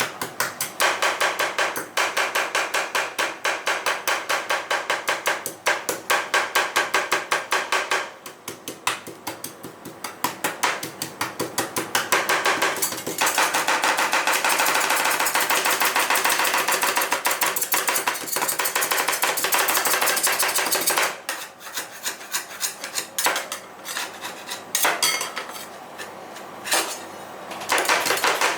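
Metal spatulas rapidly clacking on the steel cold plate of a rolled-ice-cream pan, chopping the mix, with many strikes a second. Partway through, this turns into a stretch of continuous scraping across the plate, then goes back to scattered taps near the end.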